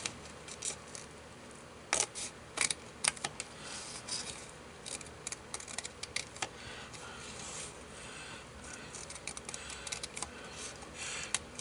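Scissors snipping through printed paper, a string of short, irregular sharp snips.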